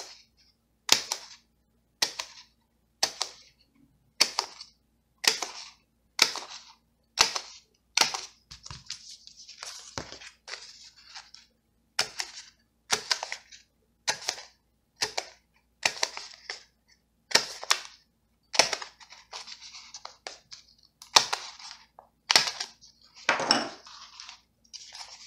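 Sharp plastic clicks about once a second, with paper rustling in between, as planner pages are punched and pressed back onto the discs of a disc-bound Happy Planner; a heavier thump comes near the end.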